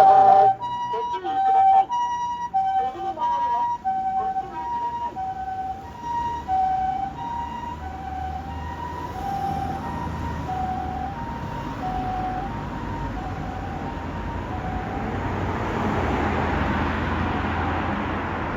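Japanese ambulance siren sounding its two-tone hi-lo call on an emergency run: a higher and a lower tone taking turns, about half a second each. After about thirteen seconds the tones fade, and a rushing traffic noise grows louder.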